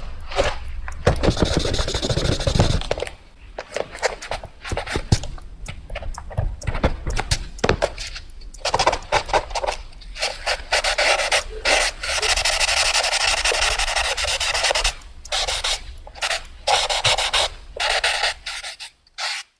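Rapid sketching on paper: a drawing tool scratches across the sheet in quick short strokes with brief pauses, then in one longer continuous scribble of about three seconds.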